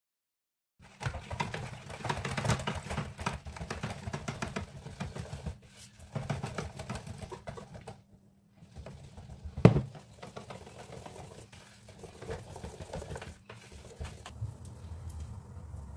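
Kitchen handling noises: packaging rustling and utensils tapping and scraping, with one sharp knock just under ten seconds in, over a low steady hum.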